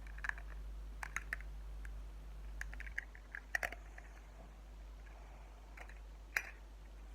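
Scattered light clicks and taps from hands opening a SuperZings blind pack and handling the small plastic toy inside, over a steady low hum.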